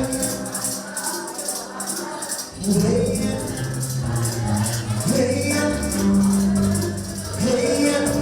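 Live Moroccan wedding music: voices singing long phrases that begin about every two and a half seconds, over jingling hand percussion.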